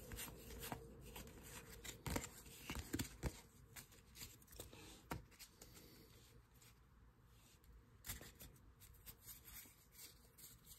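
Faint rustling and flicking of paper trading cards as a stack is thumbed through and cards are laid on a wooden table, with a few sharp clicks scattered through.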